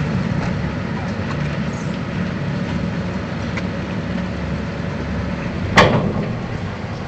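Vehicle barge's engine running with a steady low rumble while its bow ramp comes down, then one loud clank near the end as the steel ramp lands on the concrete slipway.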